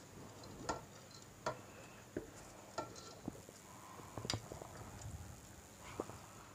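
Spatula knocking and scraping against a steel bowl as boiled rice is pushed out onto a pan: a handful of faint, irregular taps and clicks.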